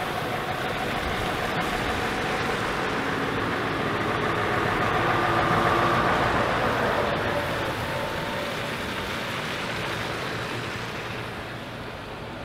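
A Scania tractor unit with a low-loader trailer drives past close by: diesel engine running and tyres on wet asphalt. The sound swells to its loudest about halfway through, then fades as it moves away.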